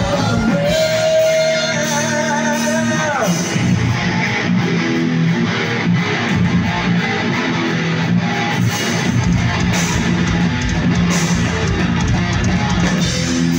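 Live heavy metal band playing: electric guitars, bass and drums, loud and continuous. A held lead guitar note that bends in pitch stands out over the first three seconds or so.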